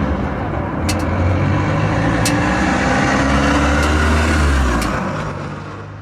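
Suzuki SV650's 645 cc V-twin engine with its stock exhaust running at low speed, swelling in level and then dying away near the end.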